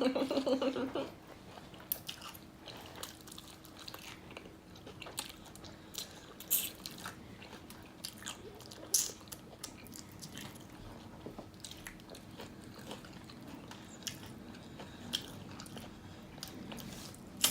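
Close-up eating sounds of honey-drizzled crispy fried chicken: scattered crunching bites and chewing, with a faint steady hum behind.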